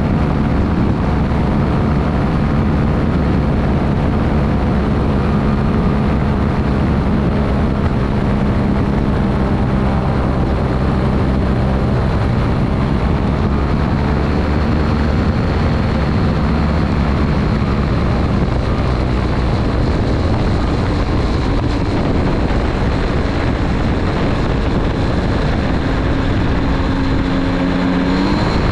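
Aerolite 103 ultralight's engine and pusher propeller running steadily, with wind rushing past, during a low approach and landing. The engine note wavers a little with throttle changes and shifts near the end as the aircraft is on the ground.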